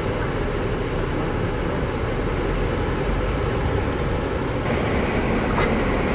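Steady road and engine noise heard from inside a moving car's cabin, a constant rush of tyres and motor that grows a little louder near the end.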